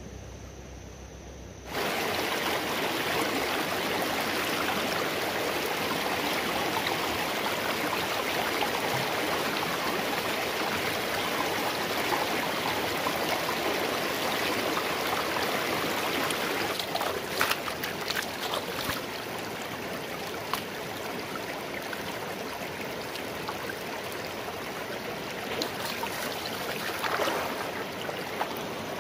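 Shallow, rocky stream running steadily over stones. It cuts in suddenly about two seconds in, with a few brief splashes about halfway through and near the end.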